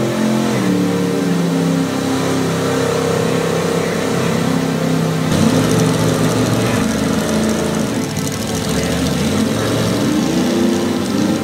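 Mega truck engines running hard at high revs under load as two trucks pull against each other in a tug-of-war; the revs hold steady at first and rise and fall near the end.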